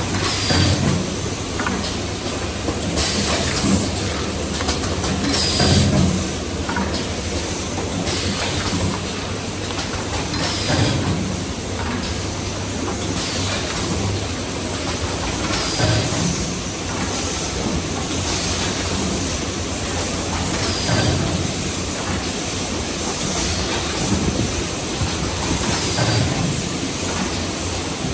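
Corrugated paper cupcake-mould forming machine running: a steady mechanical clatter, with a heavier stroke and a short hiss repeating about every two and a half seconds.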